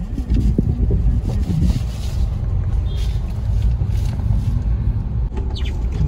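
Steady low rumble of road and engine noise inside the cabin of a moving car.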